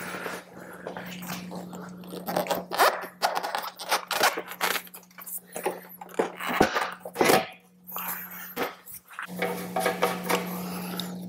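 A Harley-Davidson Street Glide's seat being set back on and pressed into place by hand: a run of irregular knocks, clicks and rubbing against the bike, over a steady hum that drops out for a few seconds after the middle.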